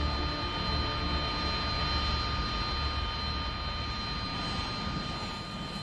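Jet aircraft engine running with a steady high-pitched whine over a continuous rush, easing slightly toward the end.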